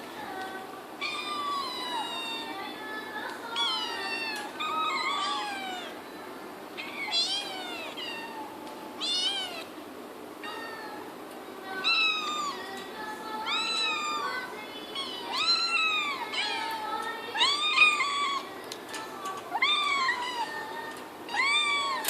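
Several kittens meowing over and over, high-pitched calls that rise and fall, one after another and sometimes overlapping.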